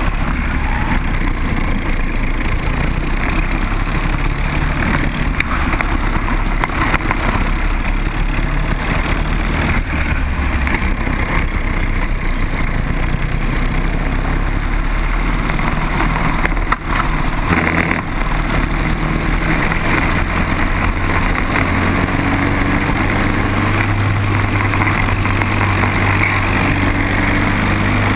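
Four-stroke Briggs & Stratton racing kart engine running flat out on track, its pitch rising and falling with the throttle through the corners, heard from on board the kart.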